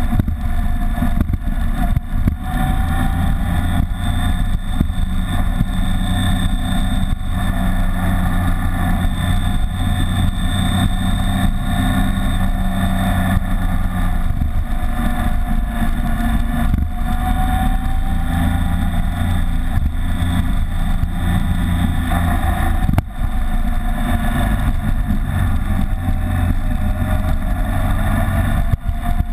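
BMW K75's three-cylinder engine running under way, its pitch slowly rising and falling with speed, mixed with heavy wind rush on the windshield-mounted camera.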